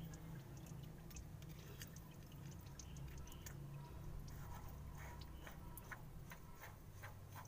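Faint wet clicks and squishes of oily hands working a metal part down onto a gear-oil-covered gearbox shaft, over a low steady hum.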